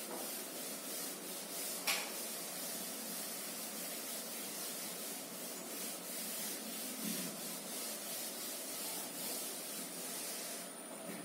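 Chalkboard duster rubbing back and forth across a chalkboard in repeated wiping strokes, with a single sharp knock about two seconds in; the wiping eases off near the end.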